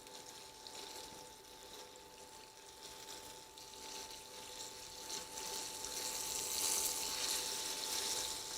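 Chicken breast sizzling as it fries in a pan, getting louder and fuller from about halfway through as the heat is turned up, over a steady faint whine.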